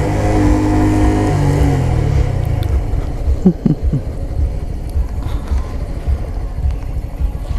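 2017 Honda Grom's single-cylinder engine running, its pitch falling as the bike slows over the first two seconds, then settling into a low rumble. A couple of short, sharp blips come about three and a half seconds in.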